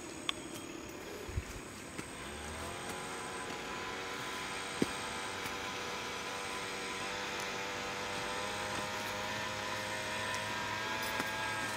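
A motor running with a steady pitched hum, its pitch rising slightly about two seconds in. A few sharp clicks sound over it.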